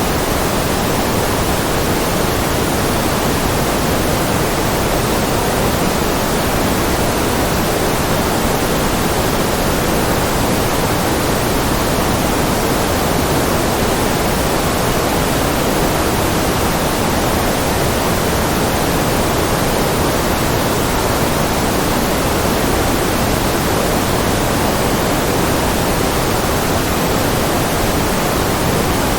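Generated white noise: a steady, even hiss that does not change.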